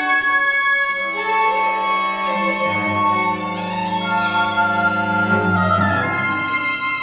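Contemporary chamber quartet of flute, oboe, violin and cello playing overlapping held notes. A low, sustained cello note enters about two and a half seconds in and fades near the end.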